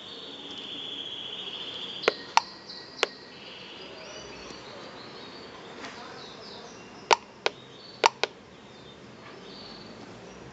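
Sharp single clicks, some in quick pairs, from the push buttons of a Clone PI pulse-induction metal detector's control box as its barrier setting is stepped up. A faint, wavering high tone sounds over the first two seconds.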